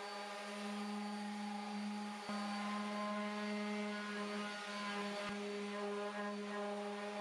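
Electric random orbital sander running steadily against a wooden nightstand's surface with 240-grit paper: a steady motor hum with evenly spaced overtones.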